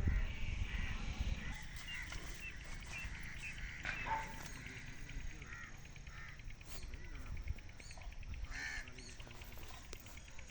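Crows cawing, a run of short calls scattered through the stretch.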